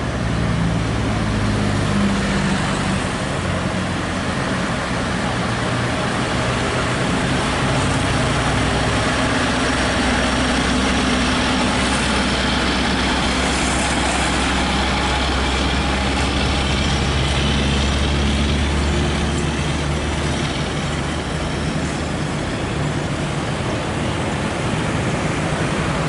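Scania R580 truck's V8 diesel engine running with a steady low drone as it hauls a heavy lowboy trailer past, loaded with a CAT 740 articulated dump truck. Road traffic runs underneath.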